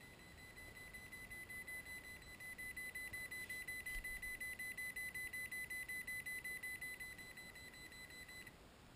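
Humminbird Piranha Max 240 fish finder running: a steady high-pitched electronic whine pulsing rapidly, many times a second, which cuts off abruptly near the end as the unit is switched off.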